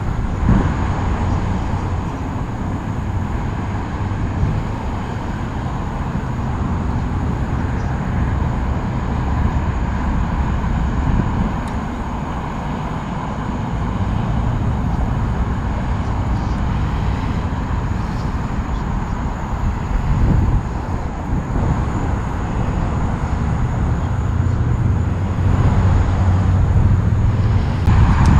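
Wind buffeting the microphone: a steady low rumble that swells and eases, louder toward the end.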